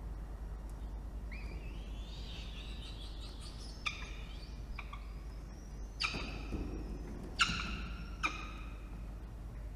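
Peregrine falcon chick food-begging at a prey delivery: a high, wavering whine, then four short harsh screeches about four, six, seven and a half and eight seconds in, the third the loudest. A steady low rumble runs underneath.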